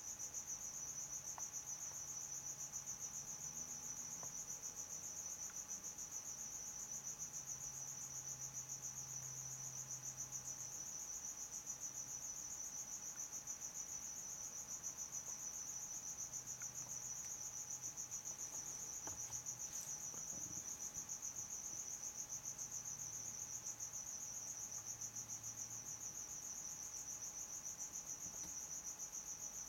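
A cricket chirping in a steady, unbroken high-pitched trill that pulses rapidly, with a faint low hum underneath.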